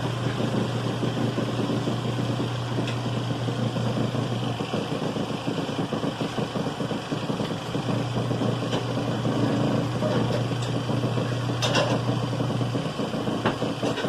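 Pyle portable twin-tub washing machine and spin dryer running: an even churning noise under a motor hum. The hum stops for a few seconds and then comes back, and there are a few light clicks near the end.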